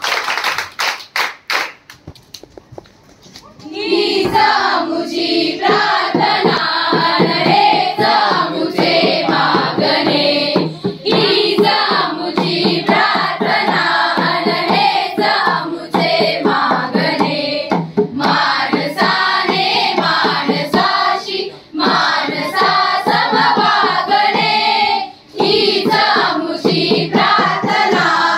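A group of voices singing a song together, with hands clapping along in time. The first few seconds are clapping alone; the singing comes in about four seconds in, with two short breaks between lines later on.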